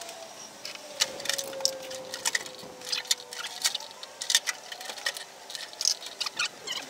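Irregular clicks and knocks of a CRT television's plastic back cover being handled and worked loose, with a faint tone sliding slowly down in pitch behind them in the first few seconds.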